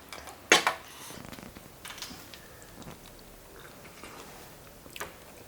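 Close-up eating and food-handling sounds: a loud sharp click or crinkle about half a second in, soft rustling and small clicks, then another sharp click near the end.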